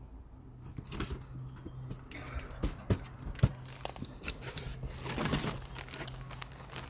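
Scattered clicks and knocks with a rustle of handling about five seconds in, over a steady low hum.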